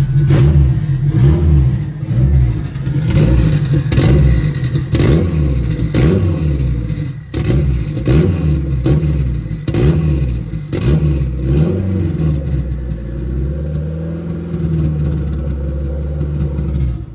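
Car engine revved up and down over and over, with short sharp cracks between the revs, then holding a steadier, lower note for the last few seconds.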